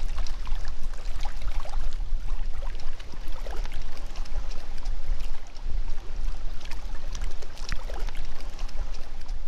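Small waves lapping and splashing irregularly against shoreline rocks, over a steady low wind rumble on the microphone.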